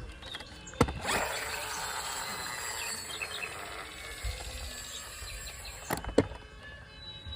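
A toy car's small mechanism whirring steadily for about five seconds, with sharp plastic clicks just before it starts and as it stops.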